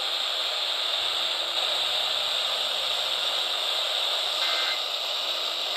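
Steady radio static: an even hiss from a receiver tuned to a weak or noisy signal, with a faint brief tone showing through near the end.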